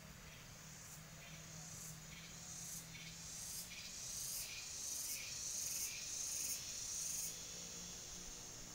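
An insect calling outdoors in a series of short, high-pitched chirps, roughly one a second, growing louder and then stopping about seven seconds in. A steady low hum runs underneath.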